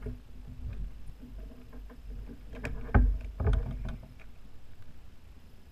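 Knocks and clunks of a freshly netted fish and gear being handled in a plastic fishing kayak, with a cluster of louder knocks about three seconds in.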